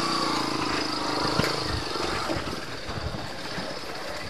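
Small motorcycle engine running at low, steady revs, its note clearest in the first couple of seconds, with a few knocks and clunks as the bike rides over a rough, dug-up dirt road.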